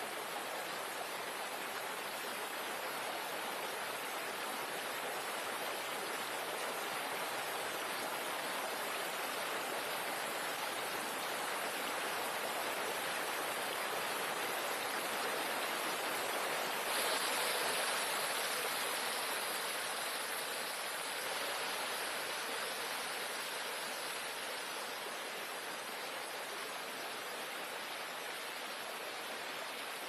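Stream water rushing and splashing over rocks in close-up, a steady rushing noise. It steps up suddenly louder and brighter a little past halfway, then slowly eases back.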